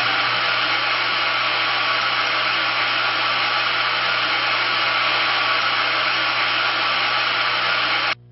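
Steady hiss of analogue TV static with a low hum underneath, cutting off abruptly near the end.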